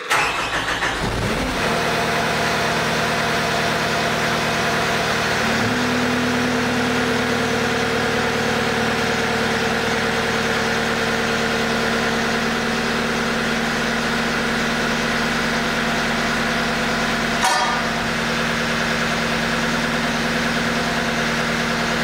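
Caterpillar 242D skid steer's diesel engine running steadily while its hydraulics raise the loader arms. The engine's pitch steps up slightly about five seconds in, and there is one short click near the end.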